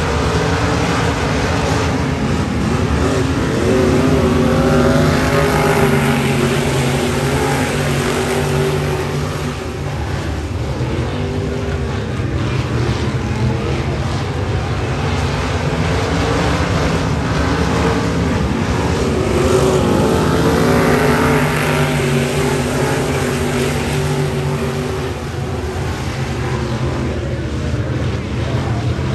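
Race car engines lapping an oval track, the sound swelling and fading as the cars come around, twice about fifteen seconds apart.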